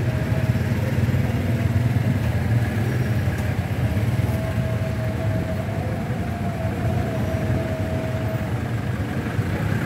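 Low, steady rumble of motorcycle and truck engines idling and running slowly on a petrol station forecourt. A thin steady whine sounds from about four to eight and a half seconds in.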